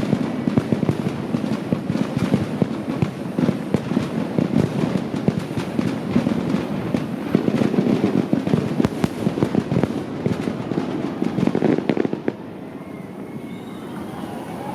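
Fireworks going off in a dense, rapid run of crackling and bangs, which dies down about twelve seconds in.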